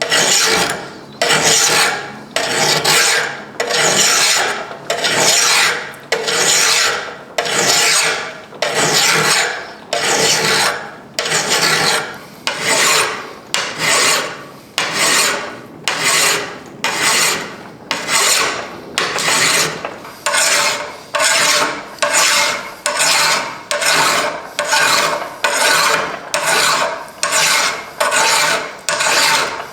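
Hand file worked over the iron and steel of a hand-forged anvil, in long even push strokes at about one a second that quicken slightly in the second half.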